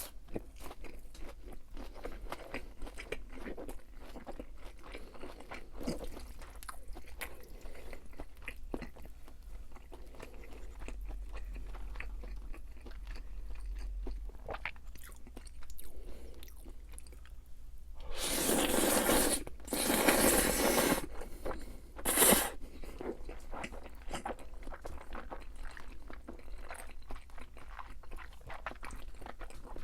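Close-miked eating: steady chewing and crunching of food, with a few short loud bursts of noise a little past halfway.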